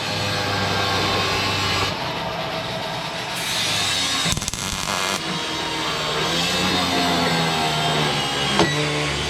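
Background music with changing melodic lines.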